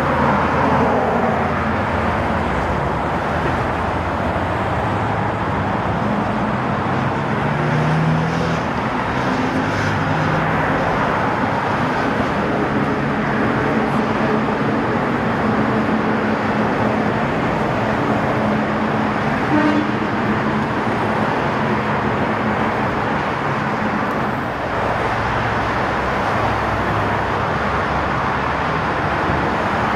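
Steady road traffic: cars and buses passing close by, a continuous wash of tyre noise with engine hum rising and fading as vehicles go past.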